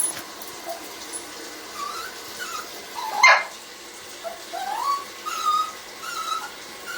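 Pet dog whining in a series of short high whines, some sliding upward in pitch, with one louder, sharper yelp about three seconds in.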